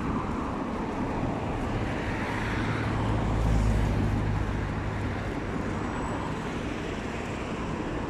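Road traffic going by on a busy road, a steady hiss of tyres and engines, with a low rumble swelling about halfway through as a vehicle passes.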